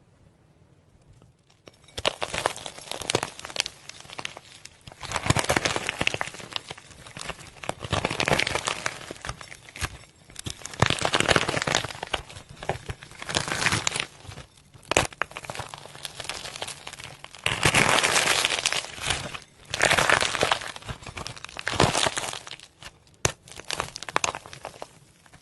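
Slime being squeezed and worked by hand, giving repeated bursts of crackling and crinkling with fine pops. It starts about two seconds in, and the bursts come every second or two.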